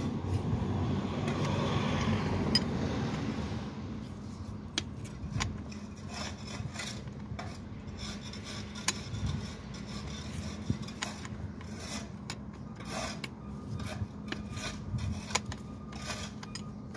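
Hand work with tools: a rubbing, scraping noise for the first few seconds, then scattered clicks and knocks over a steady low hum.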